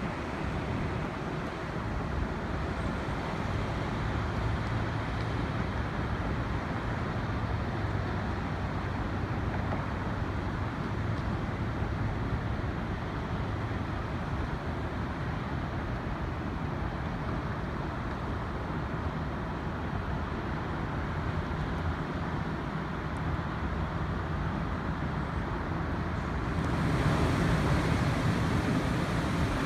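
Steady outdoor rooftop ambience of road traffic and wind, with a low hum running under it. Near the end it turns louder and brighter.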